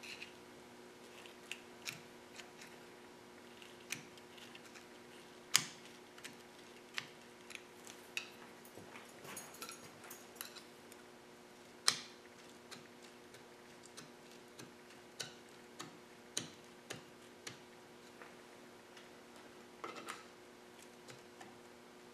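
Sparse, irregular light metallic clicks and ticks of steel drill bits against a cast-iron piston ring and piston as the ring is worked out of its groove, two of them sharper than the rest, over a faint steady hum.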